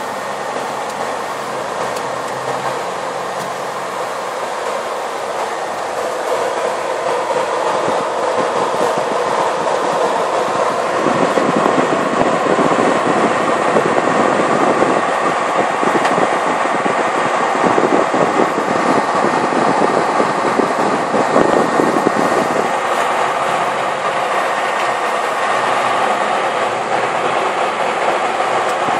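Steady engine and road noise inside a moving coach bus, growing louder with a rattle for a stretch in the middle before easing off again.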